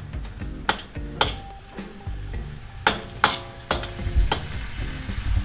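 A metal spatula scrapes and clanks against a stainless steel wok as ground pork and onion are stir-fried, with sizzling underneath. There are about eight sharp strikes, and after some of them the wok rings briefly.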